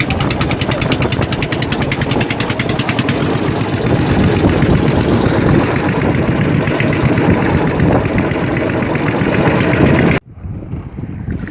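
Fishing boat's engine running steadily with a fast, even pulsing. It cuts off abruptly about ten seconds in, leaving a much quieter background.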